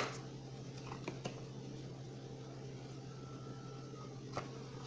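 Quiet room with a steady low electrical hum. A sharp tap comes at the very start, with a few faint ticks about a second in and again near the end.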